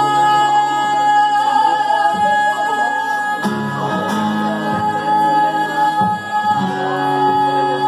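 A woman singing live to her own acoustic guitar, holding long notes over steady chords.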